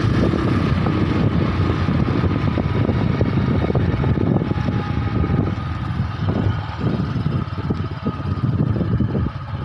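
Motorcycle riding with its engine running while nearly out of petrol, with wind rushing over the microphone. The sound drops and turns uneven about halfway through.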